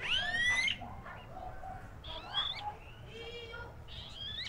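Bird calls: a string of whistled notes that sweep upward. The loudest and longest comes right at the start, and shorter calls follow about two, three and four seconds in.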